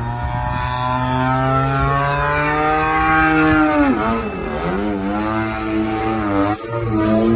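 Radio-controlled model plane's motor and propeller whining overhead, its pitch changing with throttle and passes: it drops sharply about four seconds in and again near six and a half seconds, then climbs back. A steady low hum runs underneath.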